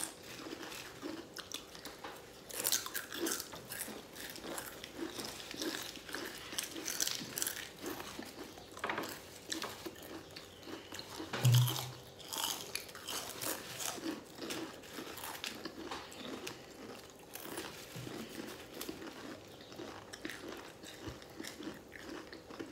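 Crisp Doritos tortilla chips being bitten and chewed by several people, with many short, sharp crunches throughout. A short low thud about halfway through.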